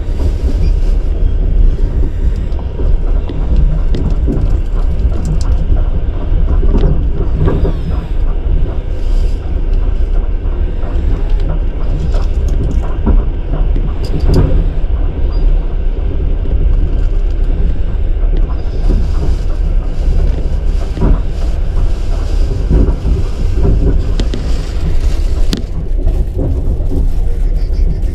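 Loud, steady low rumble of a vehicle on the move, with scattered short knocks.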